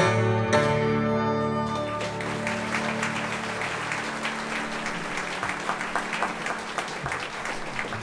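A string band of hammered dulcimers, upright bass and fiddle ends a tune on a held, ringing final chord, which fades out about two seconds in; the audience then applauds.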